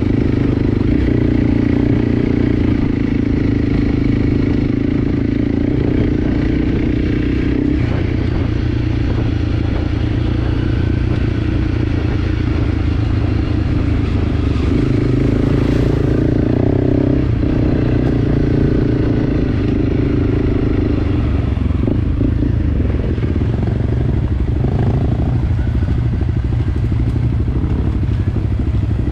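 Enduro dirt bike engine running while riding along, its pitch shifting up and down several times with throttle and gear changes.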